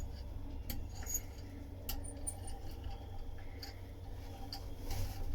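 Faint handling sounds of hand fibreglass laying: a few light clicks and ticks over a steady low hum.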